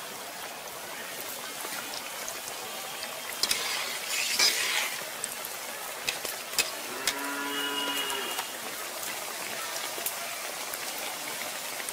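Breaded fish chops deep-frying in a kadai of hot oil, a steady sizzle, with a few sharp clicks of a metal spatula against the pan about three and a half to five seconds in. About seven seconds in, a cow moos once for about a second and a half.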